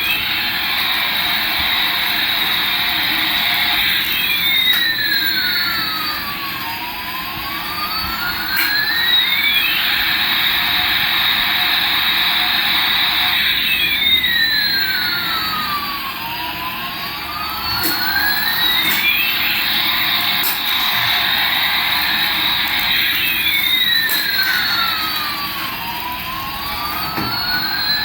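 Electronic toy sound effect: a steady jet-engine whoosh. Over it, a siren-like tone sweeps down and back up in a loop that repeats about every ten seconds.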